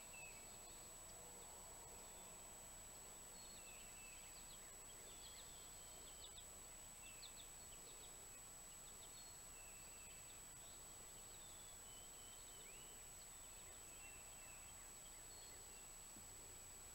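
Faint songbird chirps and short whistled notes, some sliding downward, scattered through quiet woodland, with a steady thin high-pitched whine underneath.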